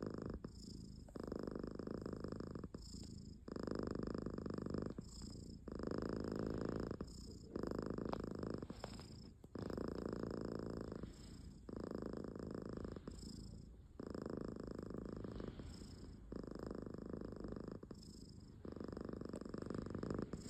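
A cat snoring in a slow, even rhythm: a rumbling phase of a second or so alternating with a softer one, about every two seconds.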